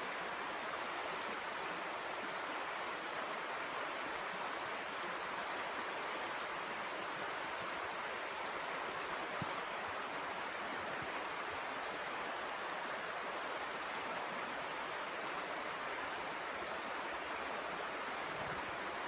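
Steady rush of flowing stream water, with many short, high bird chirps over it.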